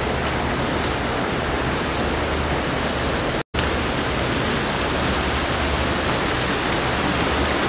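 Steady rushing noise with a low hum underneath, cutting out completely for a moment about three and a half seconds in.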